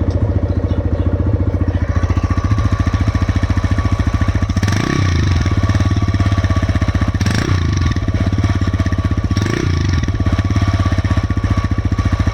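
TVS Raider 125's single-cylinder engine idling with a fast, even knock, revved briefly three times with quick throttle blips. The owner takes the knock for a tappet problem, the valves opening or closing late.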